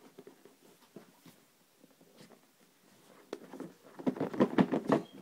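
Hands working to open the iPad 2's packaging: faint small clicks and rustles at first, then a burst of louder scraping and rustling of packaging about four seconds in.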